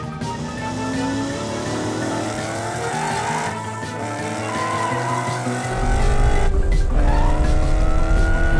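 Cartoon race-car sound effects: engines revving in repeated rising whines over background music. A deep low rumble comes in about two-thirds of the way through and makes it louder.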